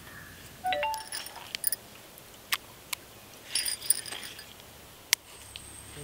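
Stone roller working turmeric paste on a stone grinding slab: scattered sharp taps and light clinks, with no steady scraping. A few short chirping tones come about a second in.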